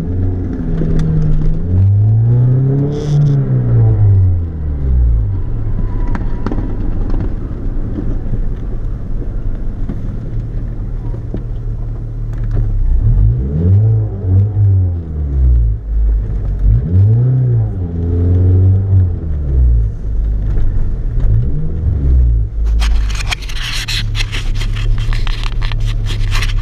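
Small car's engine heard from inside the cabin, driven slowly with the revs rising and falling several times as it accelerates and eases off. Near the end a crackling, scraping noise comes over it.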